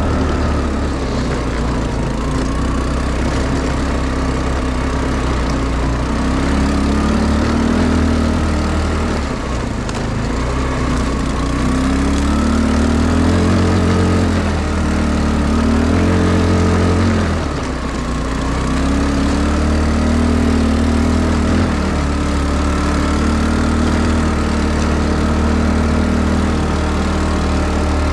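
ATV engine running while the machine is ridden, its pitch rising and falling several times as the throttle is opened and eased.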